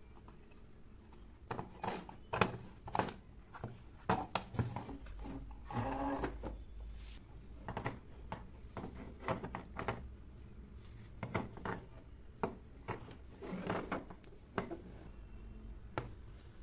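Small wooden miniature furniture pieces being handled and set down on a wooden tabletop: irregular light clicks, taps and knocks of wood on wood, with some rubbing.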